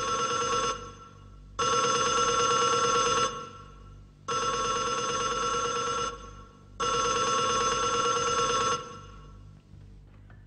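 Desk telephone ringing in long rings, each about two seconds with about a second's pause between: the end of one ring, then three more, before it stops near the end.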